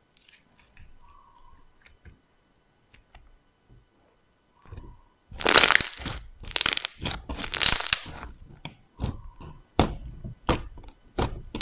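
Hands kneading and pressing a thick pale slime on a table, making loud crackling and popping as air pockets in it burst. Faint soft clicks come first, then dense crackles about five seconds in, then separate sharp pops.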